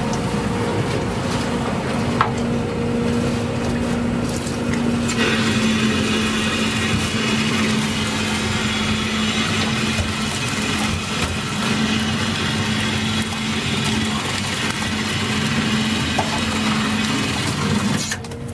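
Steady drone of a small gillnet fishing boat's engine and net-hauling machinery running as the net is hauled aboard, with a couple of faint knocks.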